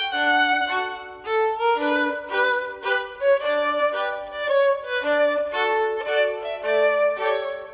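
Background music: a quick melody of short, separate notes.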